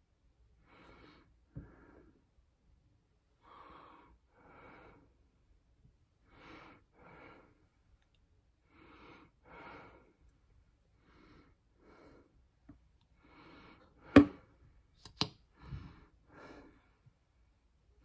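A person breathing in and out close to the microphone, soft paired breaths coming about every two to three seconds. Near the end, two sharp clicks about a second apart.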